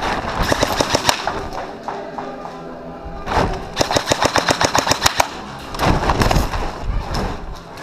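Airsoft electric rifle, a custom G&G SCAR-L AEG, firing two full-auto bursts at about eleven shots a second: a short one about a second in and a longer one about four seconds in.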